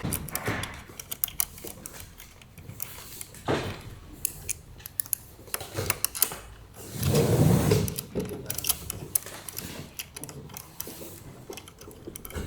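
Irregular mechanical clicking and rattling, with a louder, lower-pitched bump and rustle from about seven to eight seconds in.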